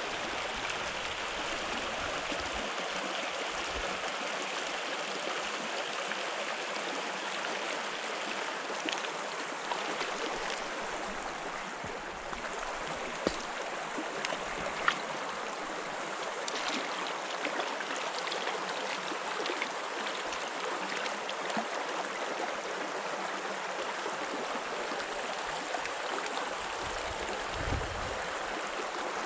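Stream water running steadily, a continuous rushing hiss. Two sharp clicks come about halfway through, and a brief low rumble near the end.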